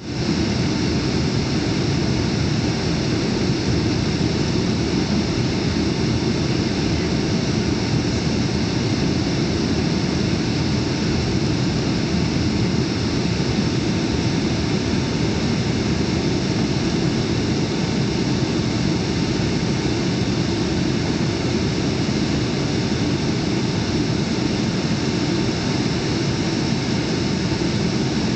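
Steady roar of a jet airliner's engines and rushing airflow heard inside the passenger cabin on final approach, wing flaps extended.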